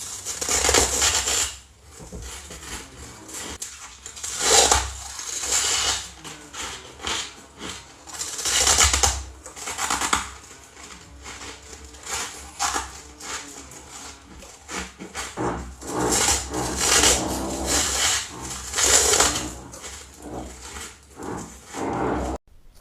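White ice being bitten and chewed close to the mouth: repeated sharp, crackling crunches every second or two, with quieter grinding chews between them.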